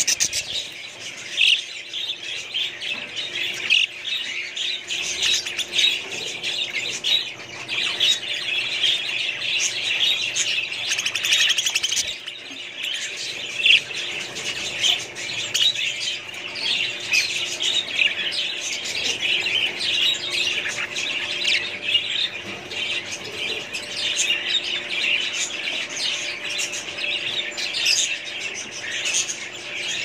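A flock of caged budgerigars chattering and warbling, a dense, unbroken mix of chirps and squawks.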